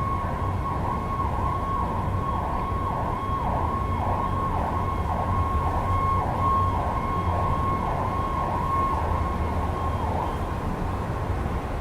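Emergency vehicle siren going past, its pitch dipping and rising again over and over, a little under twice a second, fading out near the end, over a steady low rumble of city traffic.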